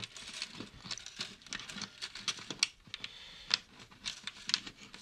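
Irregular light clicks, taps and rustles of fingers working at the strings and bridge of a 12-string acoustic guitar.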